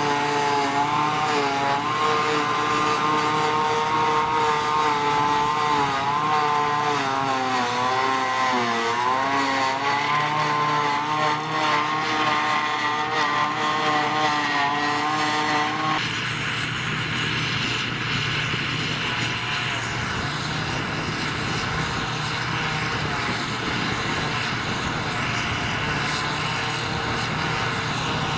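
Tractor engines working under load with a trailed forage harvester chopping and blowing grass into a trailer. The engine note wavers and dips briefly about a third of the way in. At about the middle the sound changes suddenly to a more even, hissy running of engines and harvester.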